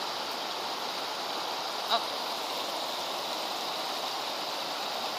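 Shallow stream water running steadily over stones and pebbles, with one short click about two seconds in.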